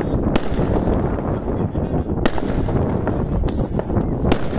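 Consumer fireworks going off: about four sharp bangs of small shells bursting, spread across a few seconds, over a continuous noisy background.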